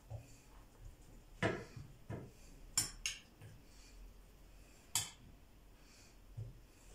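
A metal spoon clinking several times against a glass bowl while scooping minced-meat filling, with softer handling knocks between the sharp clinks.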